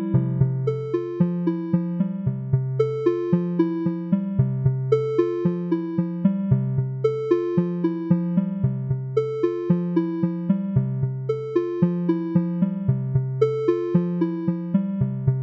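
Keyboard music: a short phrase of evenly struck, clean notes, repeating in a loop about every two seconds.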